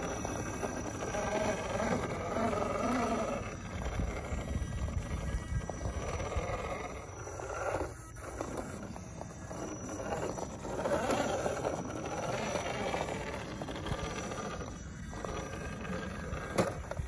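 Scale RC crawler's electric motor and geared drivetrain whirring as the truck crawls over rock, rising and falling with the throttle, with brief pauses about halfway through and near the end.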